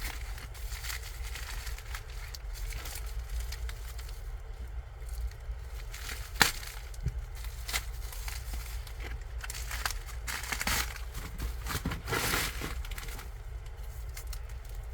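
Crinkling and rustling of comic-book packaging being handled, with a sharp click about six and a half seconds in and a louder stretch of rustling near the end.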